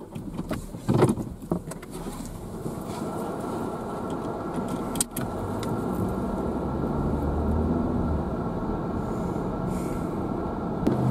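Inside a car: a few clicks and knocks, then the steady engine and road noise of the car driving, rising over the first few seconds.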